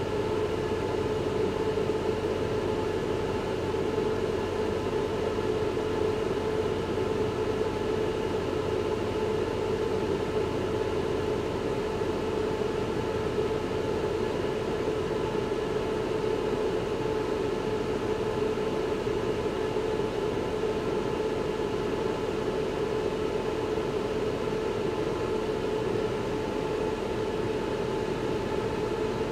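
Wind tunnel running with air blowing at about 15 m/s: a steady rush of air with a steady hum and fainter higher tones, as a 3D-printed drag turbine spins in the airflow.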